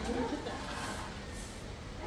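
A lull in conversation: steady low background noise, with a voice trailing off at the start.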